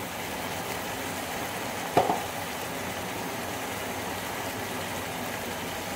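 Mutton pieces sizzling steadily in oil in a non-stick pan, with one short clink about two seconds in.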